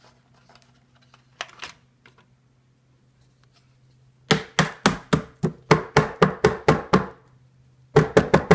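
iRobot Roomba 980 AeroForce filter being tapped hard against a surface to knock the dust out. About halfway through comes a quick run of roughly a dozen sharp knocks, about five a second. Near the end a second, faster run of knocks starts.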